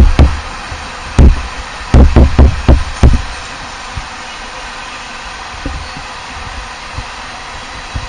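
Freight train passing close by: a steady rumble with a run of loud, low knocks in the first three seconds.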